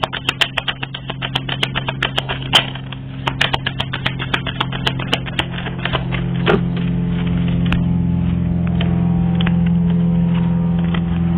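Cards being shuffled by hand, a quick run of small clicks for about the first six seconds, over a steady low hum that grows louder once the shuffling stops.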